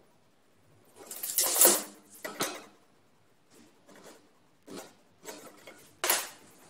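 Short scratchy bursts of a pencil marking a wooden board and of a tape measure and a square being handled against the wood, the loudest about a second in and another near the end.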